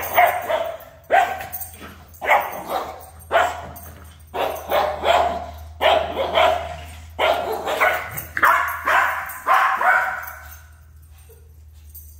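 Shih Tzu barking again and again in play while tugging on a toy, a long run of short barks that stops about two seconds before the end.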